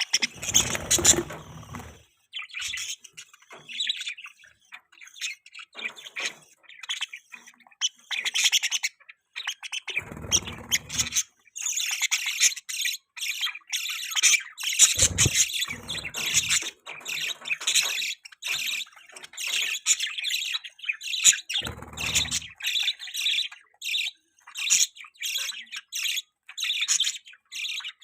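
Budgerigars chirping and chattering in a dense, continuous stream of quick high warbles and chirps. A few brief low thumps break in near the start, about a third of the way in, in the middle and about three quarters through.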